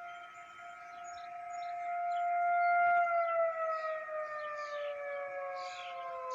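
Federal Signal 2001-SRN electro-mechanical rotating warning siren sounding a steady tone that swells louder as the horn turns. About halfway through, its pitch starts to fall as the rotor slows and the siren winds down. Birds chirp faintly in the background, more often near the end.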